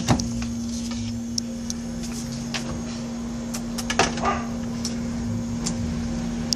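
Steady low electric hum of a refrigerator running, with a sharp thud at the start and another knock about four seconds in.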